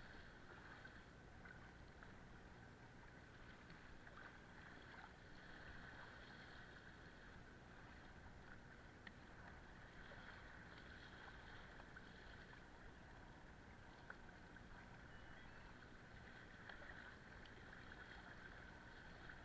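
Faint, steady water noise of a small boat moving across the water, with a few light ticks.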